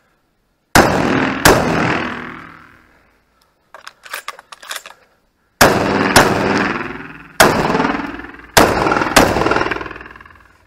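Beretta shotgun fired rapidly, about seven shots in a pair and then a quicker string, each with a long echoing decay. Between them comes a short run of light metallic clicks as shells are loaded into the magazine.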